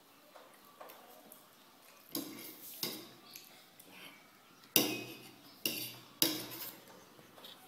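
Metal fork clinking and scraping on a plate of noodles, about five separate strikes, the loudest a little past halfway.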